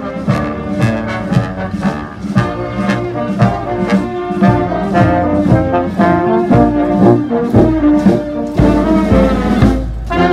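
Background music: brass instruments over a steady beat, with heavier bass coming in during the second half.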